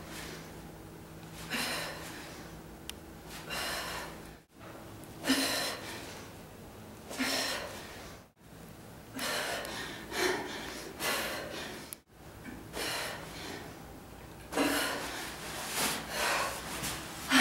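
A woman breathing hard with exertion, a forceful breath out about every one to two seconds, as she does weighted squats with a heavy sandbag.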